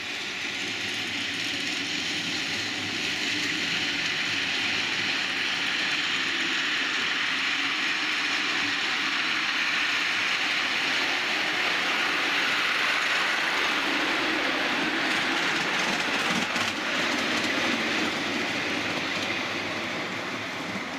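Steel wheels of a 5-inch-gauge miniature railway passenger train rolling along the track, heard from aboard as a steady rattling noise. It builds over the first few seconds and eases a little near the end.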